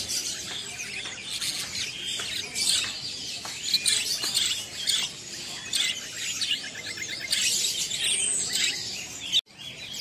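Caged budgerigars chirping and chattering, many short high calls overlapping, with a brief drop-out near the end.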